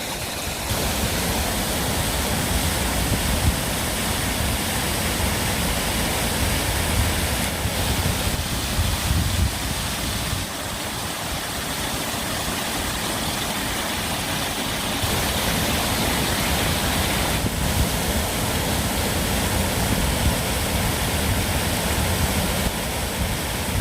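Steady rush of running water, a stream flowing among ice and icicles in winter.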